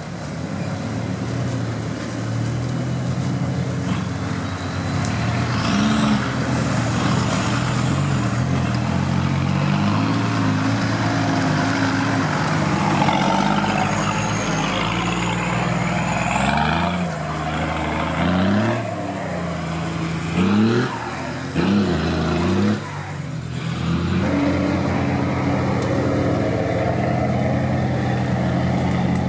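Off-road vehicle engine running under load, revved up several times in quick succession about two-thirds of the way through before settling back to a steady pull.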